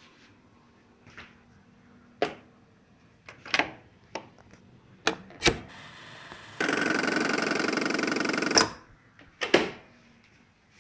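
Handles and switches on a railway signal-box interlocking panel clicking as a route is set for track three, a string of sharp clicks. About two-thirds of the way in, a loud, steady electric rattle runs for about two seconds, then two more clicks follow.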